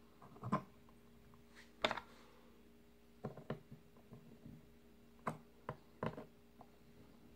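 Scattered light clicks and taps of small metal hand tools on a rebuildable vape atomizer deck while the coil is fitted and its post screws re-tightened, about eight in all with the sharpest near 2 s and between 5 and 6 s in.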